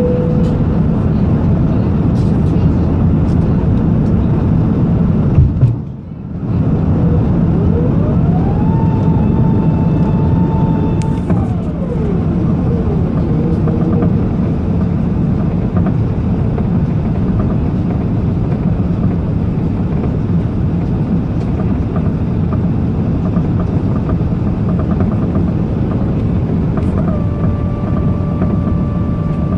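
Loud, steady engine rumble with a brief dropout about six seconds in. A tone rises about eight seconds in, holds for a few seconds, then falls away, and a steady higher tone comes in near the end.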